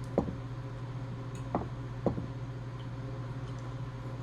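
A few soft taps and knocks of dishes and utensils at the table during a meal, three in all, over a steady low hum.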